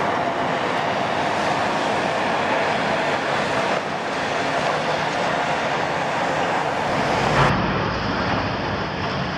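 Caterpillar 352 hydraulic excavator with its 12.5-litre Cat C13 diesel running under load as it swings and works its bucket, a steady mechanical drone. A short low thump about seven seconds in.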